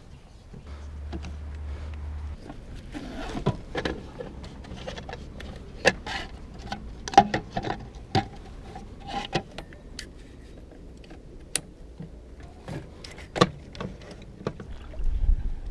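Irregular clicks, knocks and rattles of fishing gear being handled: metal clamps and legs on an angler's chair frame being adjusted and plastic buckets being moved.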